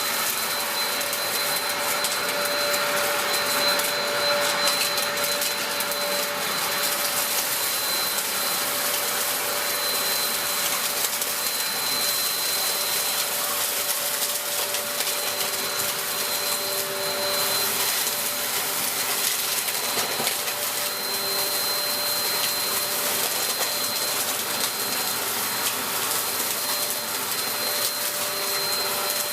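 Dyson DC03 bagless cyclonic upright vacuum cleaner running steadily while it sucks up a floor mess of flour and debris: a constant rush of air with a steady high whine over it.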